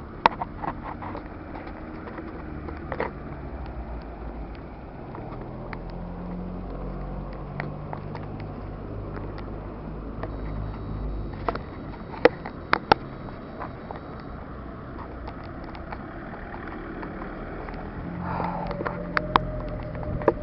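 A steady low rumble with scattered sharp clicks and knocks, and a faint thin high tone for a few seconds near the middle.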